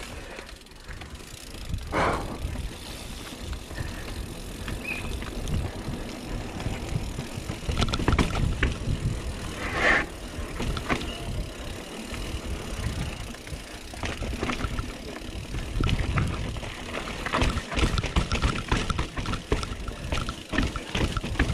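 Mountain bike ridden fast downhill over rock slabs and stone steps: tyres, chain and frame rumbling and clattering with irregular knocks. A few heavier impacts are spread through, and there is a quicker run of knocks near the end.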